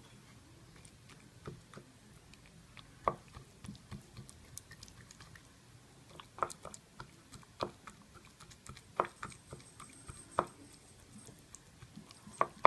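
Knife tip stabbing through raw chicken pieces into a wooden cutting board: irregular sharp taps, about one every second or so, with fainter ones between.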